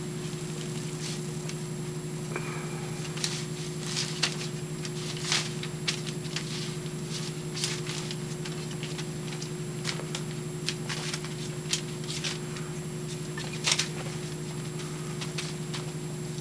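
Puppies scrambling and tussling on paper pads and towels: scattered light scratches, taps and rustles from their paws and claws, over a steady low hum.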